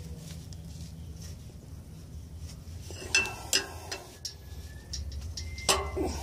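Wrench or breaker bar working on an exhaust flange nut under the van: scattered metal clicks and knocks begin about three seconds in, with a few short high squeaks and a louder knock near the end. A steady low hum runs underneath.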